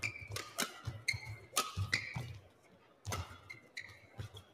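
Badminton rally: repeated sharp cracks of rackets hitting the shuttlecock, with short high squeaks of court shoes on the mat and low thuds of footfalls.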